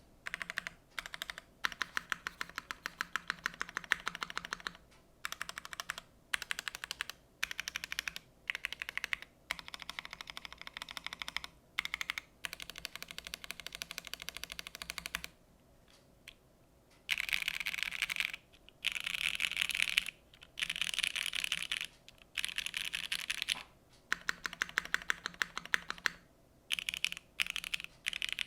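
Typing on a Keycult No. 1 TKL Rev. 2 gasket-mount mechanical keyboard with OP Black switches, GMK keycaps and an FR4 half-plate: rapid key clicks in bursts of a second or more, broken by short pauses. A gap of about two seconds comes a little past halfway, and the bursts after it are louder.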